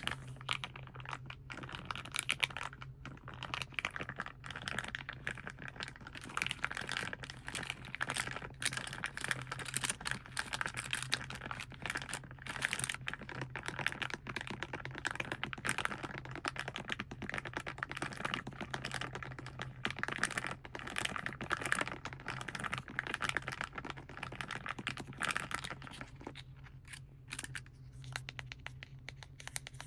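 Close-up crinkling and fast tapping on the plastic and foil of a paint set, a dense run of small crackles and clicks that thins out near the end. A steady low hum sits underneath.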